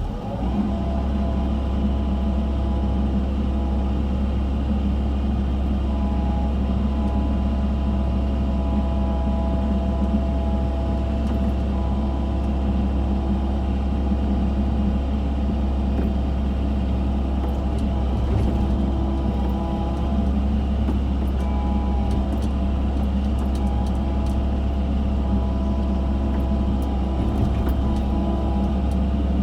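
Diesel engine of an excavator running steadily while it digs, a low drone with a steady hum above it.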